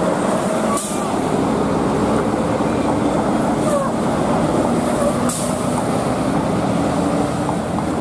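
Large bus running loudly and steadily, with two short bursts of air hiss, one about a second in and one past the middle.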